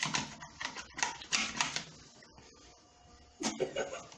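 A spoon stirring slime in a pot, with quick irregular scrapes and clicks against the container, pausing briefly before a last flurry near the end.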